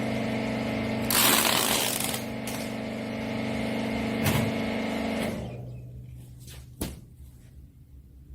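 Hydraulic rag baler's electric motor and pump unit running with a steady hum. A loud hiss lasts about a second, a low thump follows, and the machine winds down and stops about five seconds in. A single sharp knock comes near the end.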